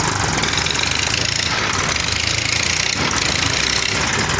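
Massey Ferguson 241 DI tractor's diesel engine running steadily with a diesel knock, working to pull a loaded trolley stuck in sand.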